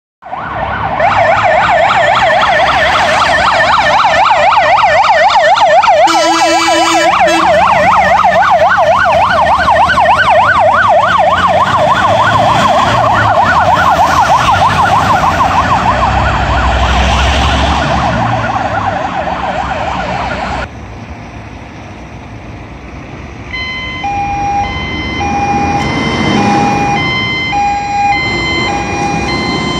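Fire engine sirens: an electronic siren rises and falls rapidly as the trucks pull out, with a horn blast about six seconds in. It cuts off abruptly about 20 seconds in, and after a few seconds of engine and road noise a siren starts up in an alternating two-tone pattern.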